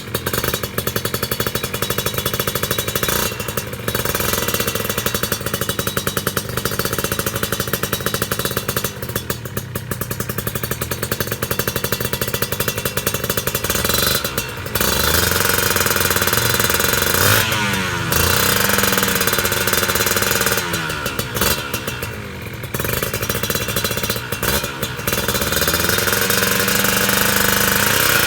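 Two-stroke Kawasaki Ninja motorcycle engine running through an aftermarket KDX exhaust. It holds a steady, rapid idle for about the first fourteen seconds, then is revved up and let fall back several times, the pitch rising and dropping with each blip.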